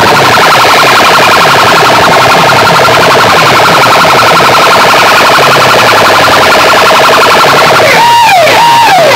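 Electronic siren and alarm effects played very loud through banks of horn loudspeakers: a fast pulsing warble with repeated falling low sweeps. Near the end it switches to a wailing siren that rises and falls about one and a half times a second.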